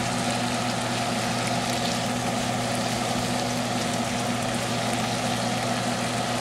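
Salmon fillets sizzling in olive oil in a frying pan: a steady hiss, over a constant low hum.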